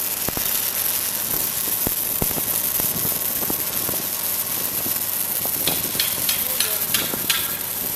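Pipeline arc welding: the arc running with a steady crackling hiss, dotted with small pops and clicks.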